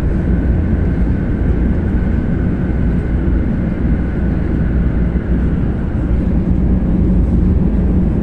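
Steady low rumble inside the cabin of a 500 series Hello Kitty Shinkansen as the train runs, with a faint steady high whine over it.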